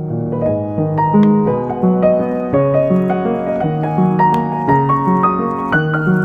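Background piano music: chords and a melody of held notes changing about every half second.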